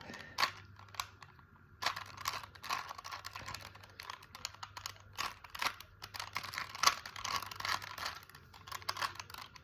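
Rubik's Cube being solved by hand: rapid, irregular plastic clicking and rattling as its layers are twisted, sparse for the first two seconds and then almost continuous.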